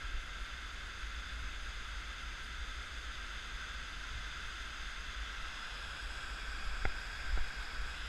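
Steady rushing of a flowing river's current, with a low rumble underneath and a couple of small clicks near the end.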